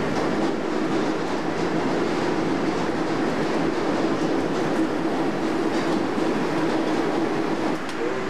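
New York City subway train running at speed on the 8th Avenue line, heard from inside the car: a steady rumble of wheels on the track over a steady hum, with a few faint clicks.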